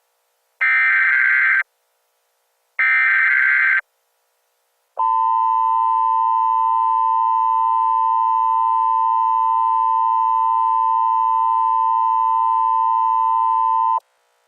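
Emergency Alert System tones: two roughly one-second bursts of SAME header data tones, then the EAS two-tone attention signal held steady for about nine seconds before cutting off.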